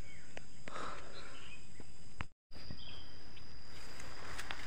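Leaves and twigs crackling and rustling underfoot with scattered snaps, as someone scrambles down a steep forest slope through undergrowth. A few short bird chirps are mixed in, and the sound drops out for a moment about halfway through.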